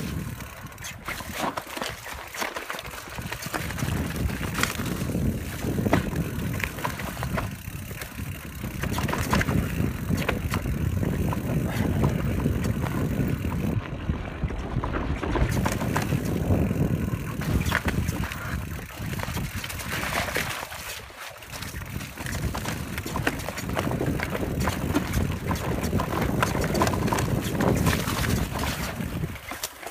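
Fast mountain-bike descent on a dirt trail heard from a chest-mounted phone: a steady rush of wind on the microphone and tyre noise, with frequent knocks and rattles from the Canyon Spectral full-suspension bike over bumps. The noise eases briefly about two seconds in and again around twenty seconds in.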